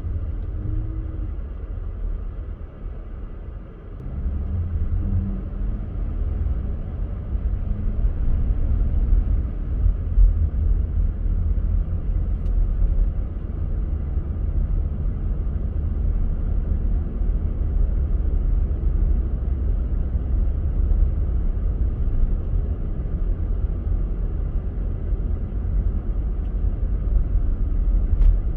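Car driving on a snowy road: a steady low rumble of engine and tyre noise, dipping briefly about three seconds in.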